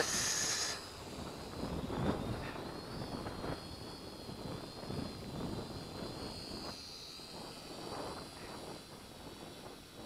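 Holy Stone HS110D toy quadcopter's motors and propellers giving a thin, steady high whine that wavers a little in pitch as the drone hovers at full throttle against strong wind. Uneven gusts of wind buffet the microphone underneath it.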